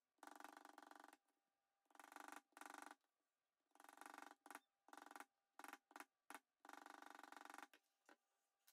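Poly maul tapping a metal leather stamping tool on veg-tan leather: quiet bursts of fast, light taps, each lasting half a second to a second, with a few single taps in the middle.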